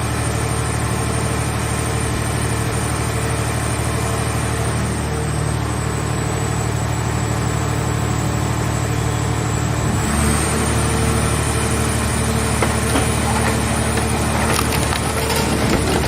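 Hydraulic vehicle-shell baler running steadily. About ten seconds in its drive note steps up, as under load, and near the end irregular cracking and crunching sets in as the scrap car body is crushed.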